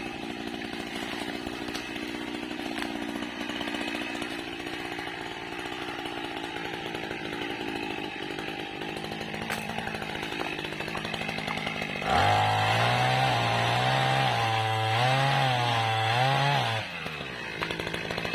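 Small petrol engine of a motorized oil-palm pole pruner (mesin egrek) running at low speed. About twelve seconds in it is revved up hard for around five seconds, its pitch wavering under load, then drops back to a lower speed.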